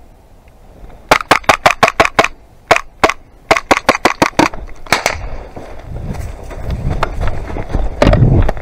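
Airsoft pistol fired rapidly, in two quick strings of sharp snapping shots and then a single shot. After that come rustling and movement noise through brush, with a loud thump near the end.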